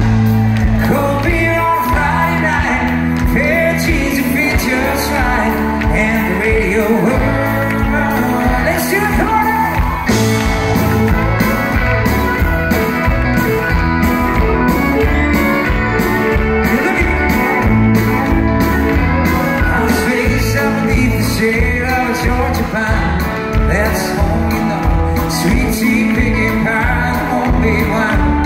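Live country band playing at full volume: a male lead singer over electric guitars, keyboards and drums keeping a steady beat.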